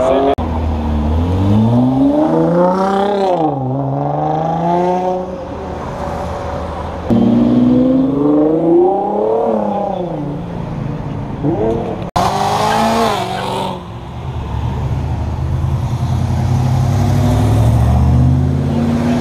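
Performance car engines revving hard and accelerating away, the engine note climbing and dropping several times, broken by two abrupt cuts between clips. A low, steadier engine rumble fills the last few seconds.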